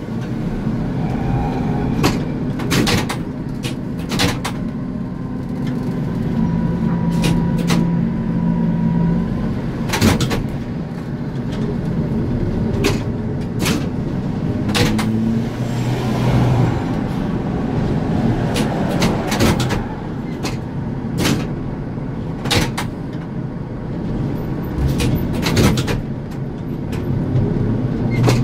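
ZiU-682G trolleybus, old and in poor condition, driving and heard from inside: the electric traction drive hums, its pitch shifting as speed changes, under frequent sharp clunks and rattles from the body.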